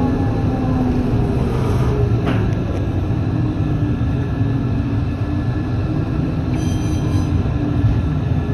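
Končar NT 2200 low-floor tram running, heard from the driver's cab: a steady rumble of wheels on rails under the whine of the electric traction drive. The whine falls in pitch over the first couple of seconds as the tram slows, then holds steady, with a short hiss about seven seconds in.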